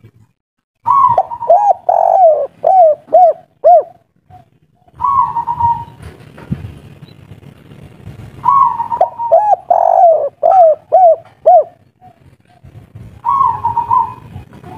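Spotted dove cooing. Two full phrases, each a higher opening coo followed by a run of about six quick, lower, arching coos. A short single coo comes between them, and another phrase begins near the end.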